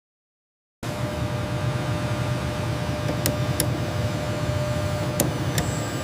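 After a short moment of silence, industrial machinery starts up and runs steadily: a low hum with a faint steady tone above it, broken by a few sharp clicks about halfway through.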